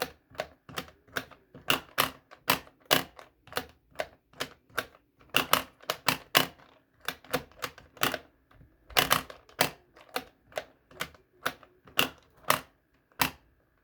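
Repeated sharp clicks of a plastic pop-up toy being pressed and popping, about two or three a second at an uneven pace.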